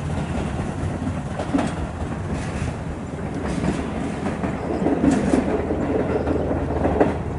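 Tobu Railway local electric train pulling away from the station and rolling past, a steady rumble with a few sharp wheel clacks over rail joints.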